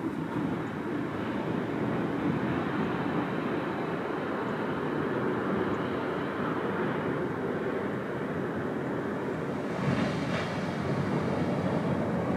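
Small ocean waves breaking on a sandy beach: a steady rush of surf, with one louder wave breaking about ten seconds in.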